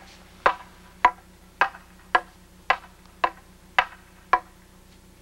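Wooden quarterstaffs clacking together in a staged fight: about eight sharp wooden knocks, evenly spaced at roughly two a second.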